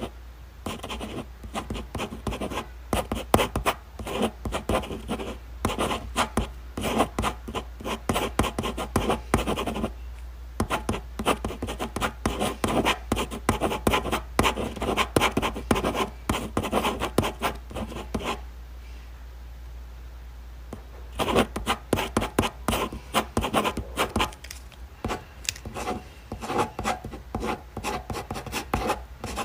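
Pen writing on paper in quick, irregular scratching strokes, with a brief pause about ten seconds in and a longer pause of a couple of seconds about two-thirds of the way through.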